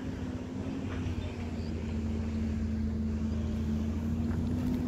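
A steady, low engine-like hum with a slight waver, over outdoor background noise, growing slowly louder.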